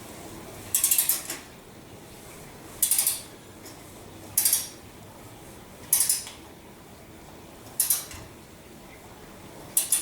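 Ratcheting torque wrench in six short bursts of clicks, one every one and a half to two seconds, as cylinder head bolts are drawn down on a first pass at 60 inch-pounds.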